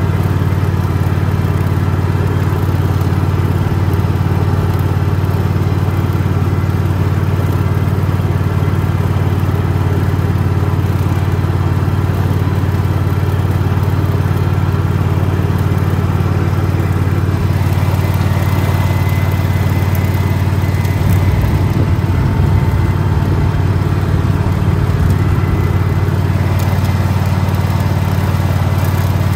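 Single-cylinder petrol engine of a Rabbit ride-on lawn mower running steadily, its low note wavering briefly about three-quarters of the way through.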